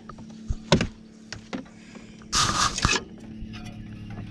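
Handling noises around a wooden rabbit hutch: a single sharp knock, then about two seconds in a loud rustling rattle lasting around half a second, over a faint steady low hum.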